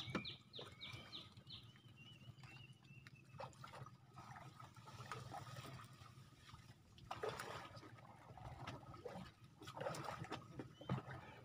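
A bird's rapid series of short falling chirps at the start, then faint trickling and splashing water with scattered small clicks.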